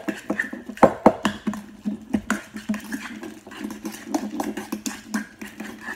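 A metal utensil mashing a banana in a stainless steel bowl: irregular clinks and scrapes of metal against the bowl, several a second.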